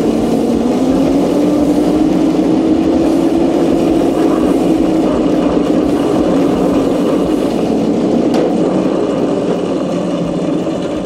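Razor Crazy Kart XL electric drift kart being driven, its motor whining as it runs. The pitch rises over the first few seconds, then slowly falls, over a steady rumble from the wheels on the ground.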